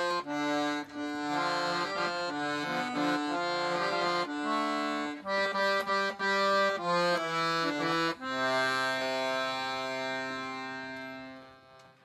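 Piano accordion playing a tune in short chords over bass notes, ending on one long held chord, about eight seconds in, that fades out near the end.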